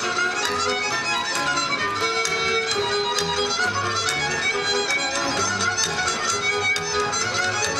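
Live folk band led by a fiddle playing a Romanian dance tune from Méhkerék, over a pulsing bass, with frequent sharp percussive knocks in the rhythm.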